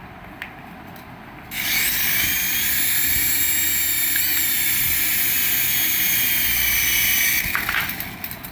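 Small electric motor of a remote-control toy whirring steadily at high pitch, starting about a second and a half in and stopping about a second before the end, after a few faint clicks.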